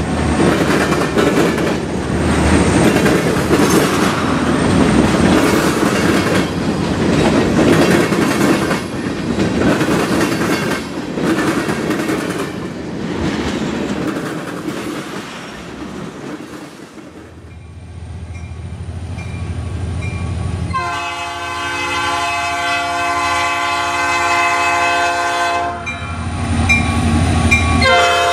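Freight cars rolling past, their wheels clacking over rail joints with a continuous rumble. After a short lull a low diesel locomotive rumble comes in, and a multi-chime air horn sounds one long blast of about five seconds, then starts again near the end.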